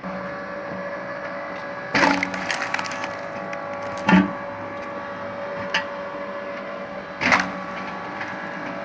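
Log splitter running with a steady mechanical hum while logs crack and splinter apart, three loud sharp cracks and a smaller one.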